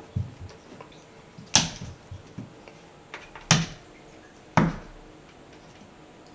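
A cat batting at a hair dryer and its cord, which is not running: three loud, sharp knocks spread over a few seconds, with lighter taps and thuds in between.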